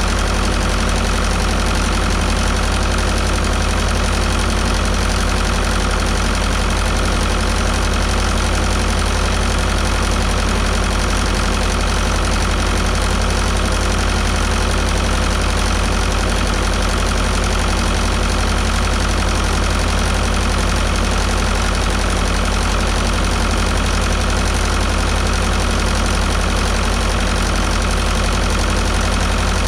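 Fordson Major tractor's diesel engine running steadily at an even speed, being warmed up to working temperature so the tappets can be set hot.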